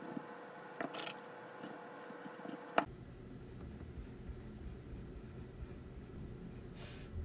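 Pen writing on paper, faint scratching strokes. A faint steady hum runs under it and cuts off at a sharp click about three seconds in.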